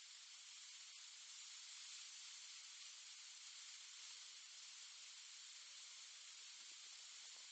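Near silence: a faint, steady hiss of background noise with nothing else happening.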